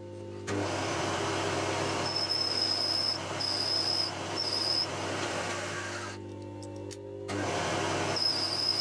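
Milling machine spindle running while a counterbore cuts the pinch-bolt hole in a metal part. The cutter gives several short high-pitched squeals, three in quick succession a couple of seconds in and one more near the end.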